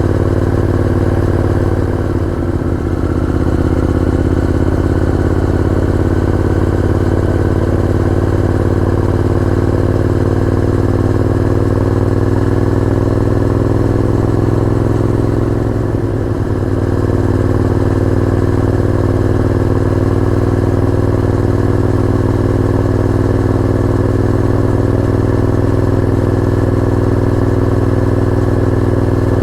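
Honda VTR1000F's 90-degree V-twin engine running at a steady note. It eases off briefly about two seconds in and again a little past halfway.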